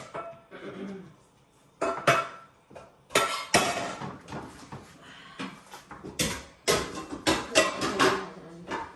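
Cooking utensil clattering and scraping against a frying pan and dishes as fried vegetables are lifted out, a run of irregular sharp knocks.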